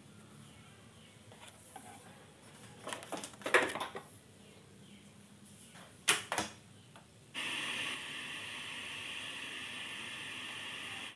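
A few clicks and knocks, then, about seven seconds in, a steady hiss starts suddenly from the Sharp Aquos LCD TV's speaker. This is the static of its tuner on a channel with no signal.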